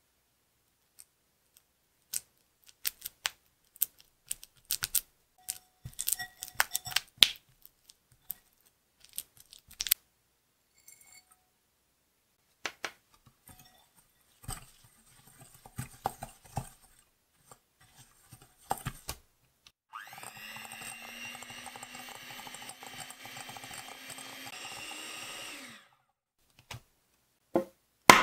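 Scattered clicks and taps against a glass bowl. Then an electric hand mixer runs steadily for about six seconds, creaming butter and brown sugar, and stops suddenly. A couple of clicks follow near the end.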